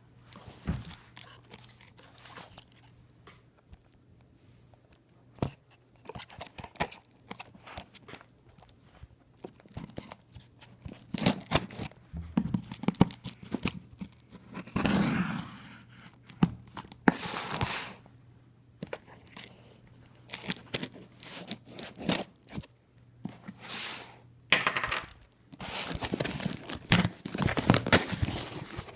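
Shipping package being torn open and its packaging handled: irregular tearing, crinkling and scraping with sharp knocks, coming in spells.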